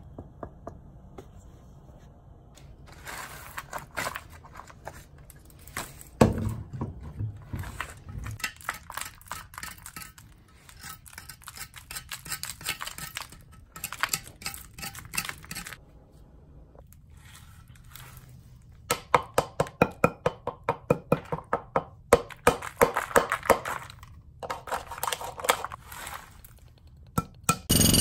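Knuckle knocks, scraping and crumbling as the cast refractory lining of a homemade foundry is worked loose from its plastic bucket mould, followed in the last third by a quick run of sharp hammer taps around the cup that formed its centre bore.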